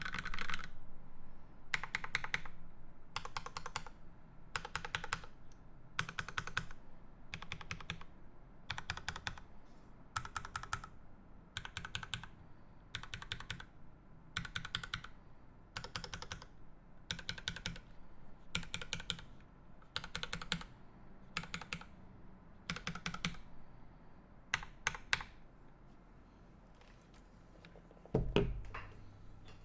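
Mechanical keyboard with lubed, filmed Cherry Hyperglide MX Black linear switches, GMK keycaps and a 3 mm aluminium plate being typed on in short bursts of keystrokes, about one burst a second. The typing stops a few seconds before the end, and a single low thump follows.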